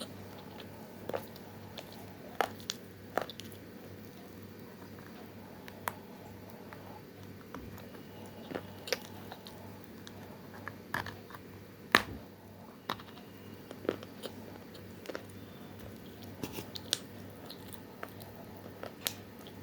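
Biting and chewing dry chunks of multani mitti (fuller's earth clay): scattered sharp crunches at irregular intervals, the loudest about twelve seconds in, over a steady low hum.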